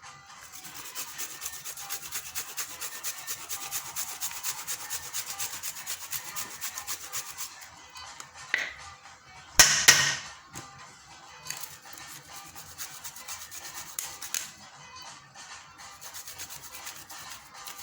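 Fresh ginger being rubbed over a hand grater in fast, even strokes, in two long runs with a break between them. About ten seconds in there is one loud clatter, louder than anything else.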